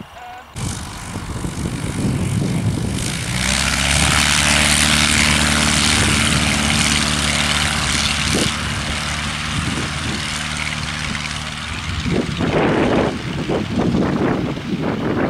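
Light aircraft's piston engine and propeller running close by, a steady drone with a strong hiss over it, growing louder and rougher near the end as the high-wing monoplane rolls for takeoff.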